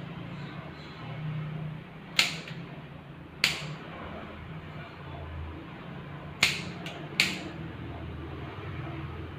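Sharp snips of a scissor-type pet nail clipper cutting hair at a dog's ear: four loud clicks spaced a second or more apart, with a faint extra click between the last two, over a steady low hum.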